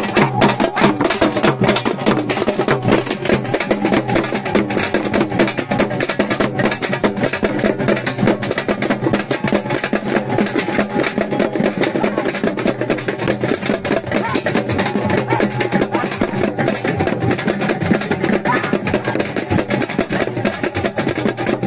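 Loud, fast festival drumming with many rapid strokes, over a steady low hum, playing without a break.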